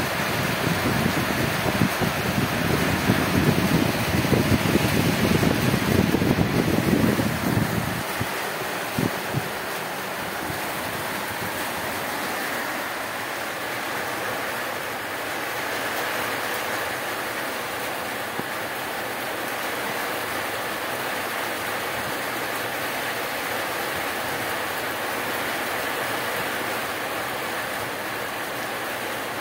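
Heavy rain falling steadily, a dense, even hiss. For about the first eight seconds a louder, lower rushing sits under it, then the rain settles to a constant level.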